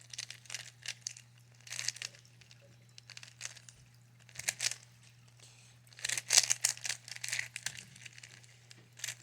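Plastic Rubik's cube being scrambled by hand: bursts of quick clicking, rasping layer turns with short pauses between them, the longest run of turns past the middle.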